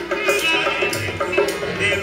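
Live Rajasthani folk music from a small ensemble: hand drums keeping the beat under a repeating melodic line.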